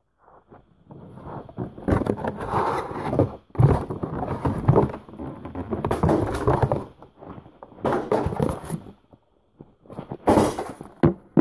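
Irregular bursts of rustling and clattering noise, about five of them lasting a second or so each, with a few sharp knocks among them.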